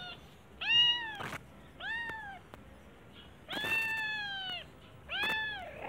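Calico kitten meowing four times, high thin meows that rise and fall in pitch, the third one the longest.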